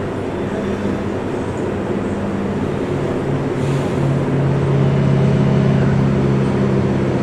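Inside a 485-series electric train carriage: steady running noise with a low, even hum that grows louder about four seconds in as the train gets under way again after an emergency stop.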